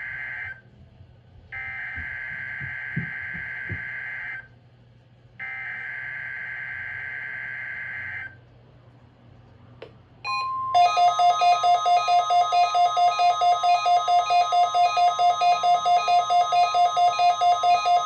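NOAA Weather Radio SAME/EAS header for a Required Weekly Test: the end of one buzzy digital data burst, then two more of about three seconds each, a second apart. About two seconds later the steady 1050 Hz warning alarm tone begins and holds, while a rapid electronic alarm beeps over it about four times a second.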